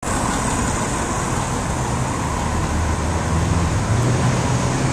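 Street traffic noise: a steady hum of vehicles with a low engine drone that rises slightly in pitch a little past halfway.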